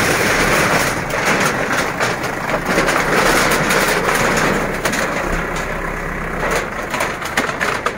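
Corrugated metal fence sheets crashing and rattling with many sharp clatters as a backhoe loader's front bucket pushes them over, while the loader's diesel engine runs.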